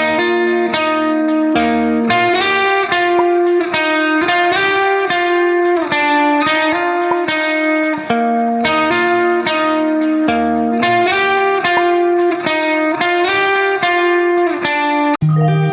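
Background music: a melody of short, evenly paced notes over held lower notes, with a brief break and a lower bass line coming in near the end.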